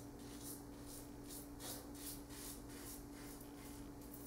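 Merkur 34C double-edge safety razor scraping through a day and a half of stubble on lathered skin in quick short strokes, about three a second. It is a faint, dry rasp over a steady low hum.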